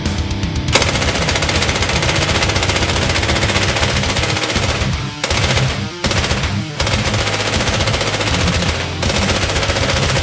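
Electronic paintball marker firing rapid full-auto bursts, a fast stream of shots broken by short pauses about five, six and nine seconds in.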